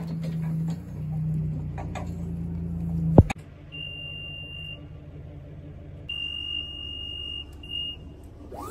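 Electric JLG T350 towable boom lift: a low steady motor hum, louder in the first three seconds and cut short by a sharp click, then its alarm giving long, steady, high-pitched beeps, twice, with a short third beep near the end.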